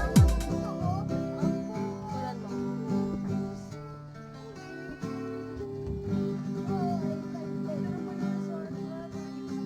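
Background music: a strummed acoustic guitar piece, following the last deep drum hits of an electronic track that fade out at the very start.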